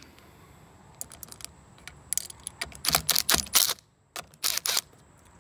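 Scattered sharp metal clicks and clinks as a socket on an extension is fitted to and worked on the bolts of a Johnson outboard's flywheel starter cup, bunched around the middle and again near the end.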